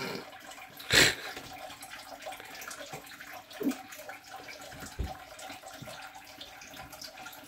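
Chopsticks scraping and tapping against a metal pot as cooked onion and egg are pushed out onto a plate. There is one sharp clack about a second in and softer knocks later, over a steady background hiss.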